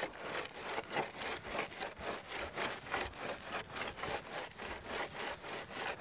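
Wooden screed board dragged back and forth across loose gravel in steady, rhythmic scraping strokes, a few a second. The board is sawing the gravel bed level, cutting down the high spots and filling the lows.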